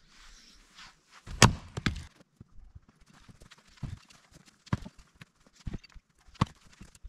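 Hatchet splitting kindling on a wooden chopping stump: sharp wooden chops, a quick cluster of the loudest about a second and a half in, then single strikes about once a second.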